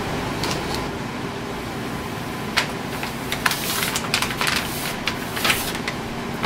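Brother MFC-J6925DW inkjet printer humming steadily through its initial ink-system preparation after the cartridges are installed. Several rustles and soft knocks from about two and a half seconds in, as a plastic-wrapped ream of paper is picked up and handled.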